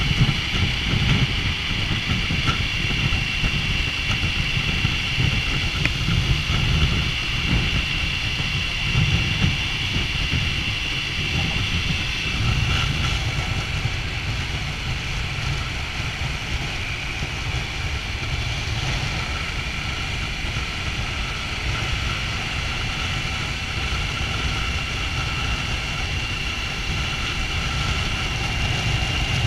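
Triumph Tiger 900's three-cylinder engine running with a steady low rumble.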